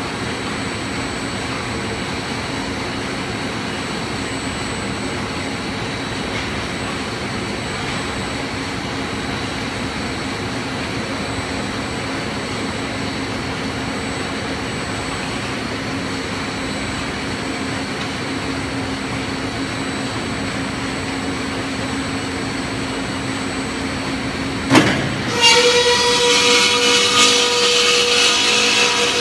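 CONTOR CTCS165 cold flying saw and its inline steel-pipe line running with a steady mechanical drone and hum. Near the end a sharp clank is followed by a louder, higher ringing made of several steady tones.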